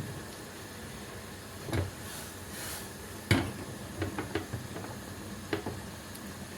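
Cooking pots and utensils knocking and clattering a few times, the loudest knock about three seconds in, with a brief hiss just before it, over a steady low hum.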